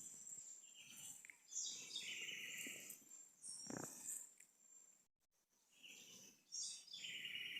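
Southern house wren (garrincha) singing faintly: two rapid, trilled song phrases, one starting about a second and a half in and another near the end.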